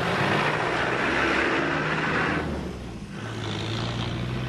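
Land Rover Discovery TDI's turbodiesel engine driving under load over a rough track. A loud rush of engine and running noise lasts about two and a half seconds, dips, then gives way to a steadier low engine note.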